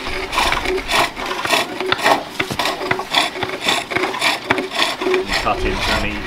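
Pole lathes turning green-wood bowls: hook tools scraping shavings off the spinning wood in a rhythmic run of cutting strokes, about two a second.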